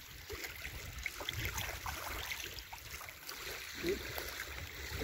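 Faint water lapping at the lakeshore, with scattered light ticks and splashes.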